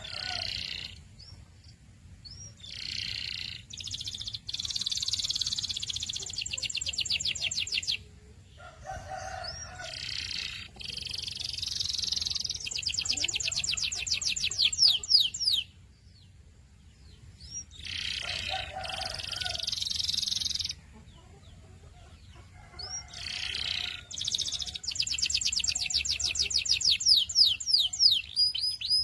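Domestic canary singing in several song phrases separated by short pauses. Each phrase opens with a few separate chirped notes, and most run on into a long, fast trill (a roll).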